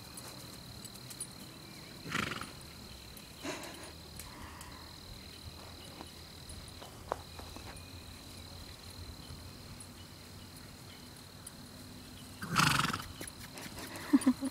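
A saddled horse being lunged in circles on grass. There are a few short loud bursts of sound from it, the loudest about twelve and a half seconds in, and a few short pitched sounds near the end.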